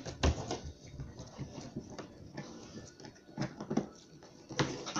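Putty slime being squeezed and pressed by hand: a string of short, irregular sticky clicks and crackles.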